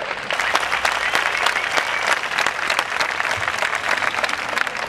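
Crowd applauding: a dense, steady clatter of many hands clapping at once, growing louder just after it starts.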